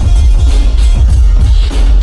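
Loud trap beat with heavily boosted sub-bass and a steady drum pattern, instrumental with no rapping.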